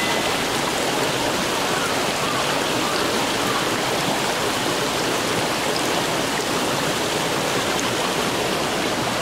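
Shallow mountain stream running over rocks and stones: a steady, even rush of water.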